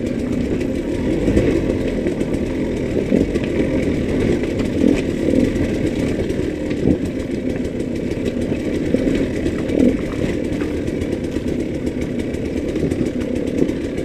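2013 KTM 200 EXC's two-stroke single-cylinder engine running steadily under light throttle, its level swelling briefly now and then. Short knocks and rattles come through as the bike rides over loose rock.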